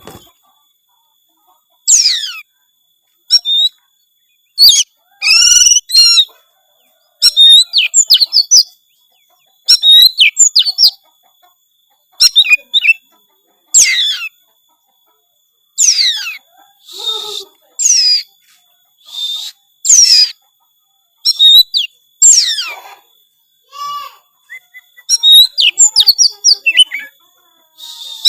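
Oriental magpie-robin (kacer) singing loudly in short phrases of sweeping, mostly falling whistles and rapid trills, with pauses of about a second between phrases. It is a full, varied 'gacor' song packed with mimicked phrases.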